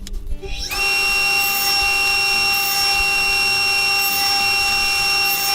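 Sherwood table saw's motor switched on, coming up to speed within about a second and then running steadily with a high whine.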